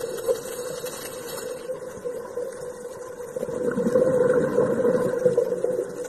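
Underwater ambience dominated by a steady engine-like drone, louder and rougher for about two seconds past the middle.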